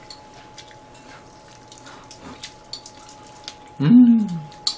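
Quiet eating sounds: small clicks of chopsticks on plates and wet mouth sounds of eating cream pasta noodles. About four seconds in comes a short, loud voiced 'mm' that falls in pitch.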